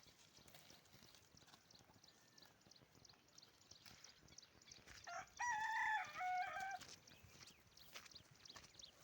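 A rooster crowing once, about five seconds in: one pitched call of about a second and a half that steps down in pitch. Faint scattered clicks and knocks sound around it.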